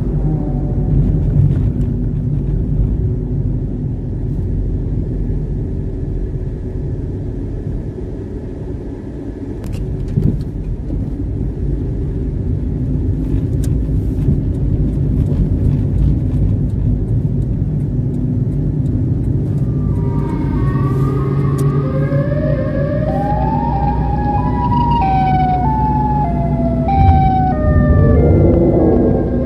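Steady road and engine rumble heard inside a moving car. About two-thirds of the way through, a series of short siren-like tones joins in, stepping up and down in pitch.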